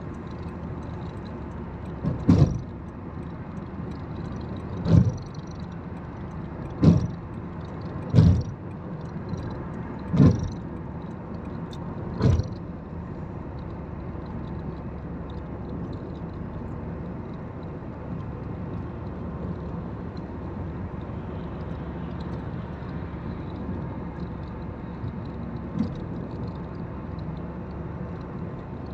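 Steady road and tyre noise from inside a car at highway speed. Six loud, short thumps come in the first half, about two seconds apart.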